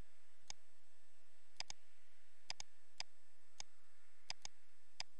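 Computer mouse clicking: about ten sharp clicks at uneven intervals, several in quick pairs.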